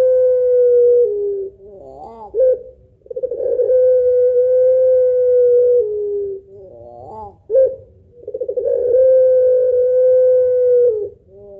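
Pelung-type ringneck dove (puter pelung) calling: long drawn-out coos held on one steady note, each stepping down slightly at its end and followed by a short burst of quick rising-and-falling notes, the 'laughing' call. The pattern repeats about every four seconds.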